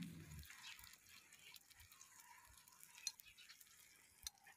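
Near silence, with faint scattered ticks and crackles from sucuk slices cooking on a marble slab over a small wood fire; the clearest ticks come about three seconds in and again near the end.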